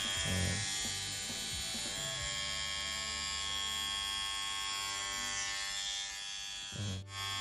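Wahl cordless rechargeable trimmer with its nose-and-ear trimmer head running steadily with a high buzz. It cuts out briefly near the end, then runs on.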